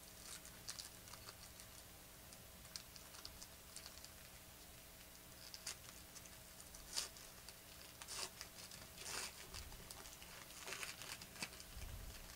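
Foil trading-card pack wrapper crinkling as it is torn open by hand: faint, short, scattered rustles and crackles.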